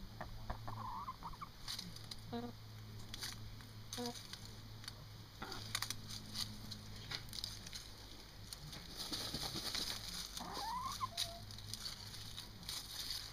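Barred Rock hen dust bathing: dry dirt scratching and scattering in short spells as she rolls and flicks dust into her feathers. She gives a soft rising call about half a second in and another about ten seconds in, with a couple of short clucks between.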